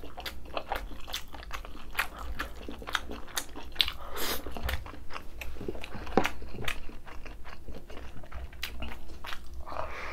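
Close-miked chewing of a mouthful of food, with a run of irregular crisp crunches and wet mouth clicks.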